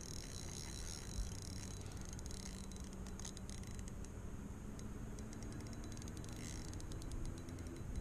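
Fishing reel clicking in short irregular runs while a big fish is being played, over a low steady hum.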